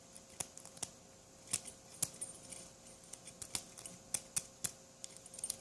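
Lock pick raking the pin tumblers of a Dongchang padlock under a tension tool: scattered, irregular light metallic clicks and ticks as the pins are pushed and dropped. The lock stays unopened.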